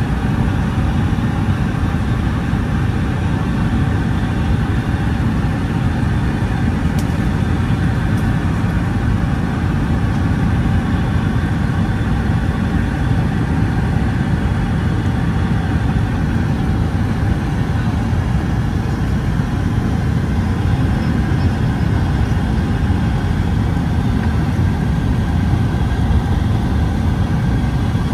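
Steady engine and air rumble inside the passenger cabin of a Boeing 757-200 airliner.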